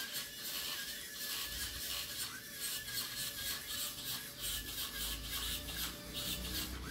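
Small geared DC motors of a homemade robot car whirring and clicking rapidly as it drives and turns on a tile floor under phone control.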